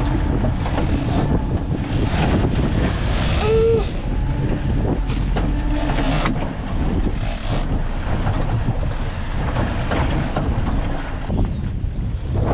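Strong wind buffeting the microphone on a small boat at sea, over the steady low rumble of the boat under way in choppy water.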